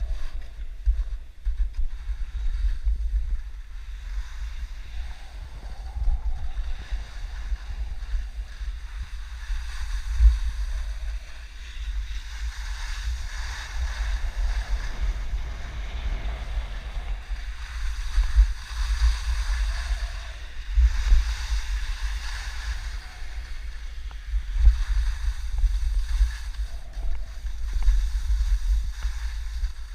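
Wind buffeting the microphone, a gusty low rumble that comes and goes unevenly, with a rushing hiss that swells in the middle and eases off again.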